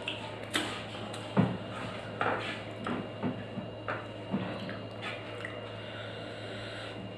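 Someone eating by hand: wet chewing and mouth sounds, with fingers squishing and mixing rice on a stainless steel plate. The short sounds come at irregular moments over a steady low hum.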